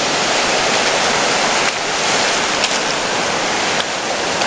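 Surf washing up a flat sandy beach close by: a steady, loud rush of breaking waves and foaming water.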